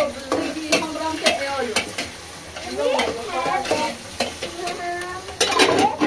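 A utensil stirring and scraping in a metal cooking pot on a stove while the food in it sizzles. Repeated sharp knocks come from the utensil striking the pot, and the scraping rings in tones that slide up and down in pitch, busiest about three seconds in and near the end.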